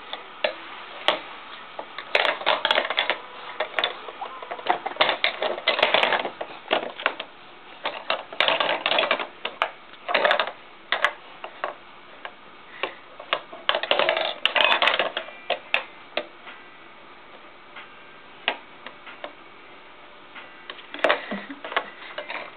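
A measuring cup and spoon being banged and clattered about by a baby: irregular sharp clicks and short bursts of clattering, busiest in the first fifteen seconds and sparser after.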